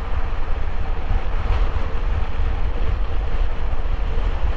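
Motorcycle riding at speed: a steady rush of wind buffeting the microphone over the hum of the engine and road.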